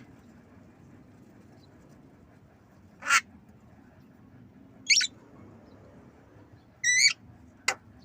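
Javan myna giving short, harsh calls: three separate calls about two seconds apart, then a brief sharp one right after the third.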